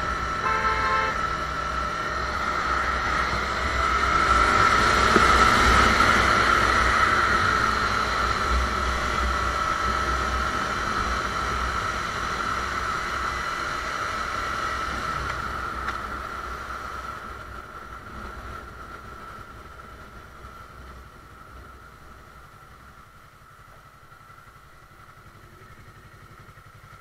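Sport motorcycle riding along a road, engine and wind noise on the helmet microphone. It is loudest around five seconds in, then dies away steadily over the second half as the bike slows down.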